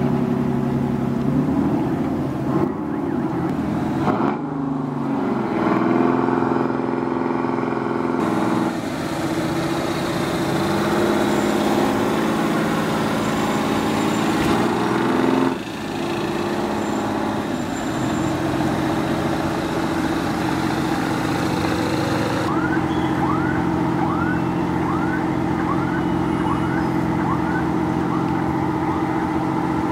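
Boat diesel engines running with a steady hum, the engine tone changing abruptly several times. Near the end a run of short rising chirps, about three every two seconds, sits over the hum.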